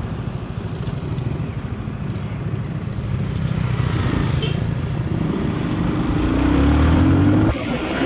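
Motorcycle engine running on the move with road and wind noise; about three-quarters of the way through its pitch and loudness rise as it speeds up, then drop off suddenly near the end.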